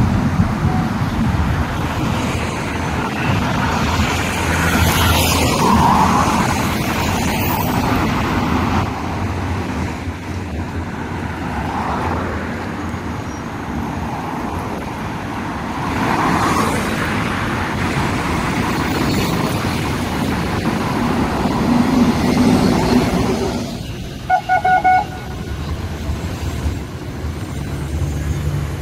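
Busy city road traffic, with cars passing steadily and the noise swelling as vehicles go by. About 24 seconds in, a horn gives a few short toots.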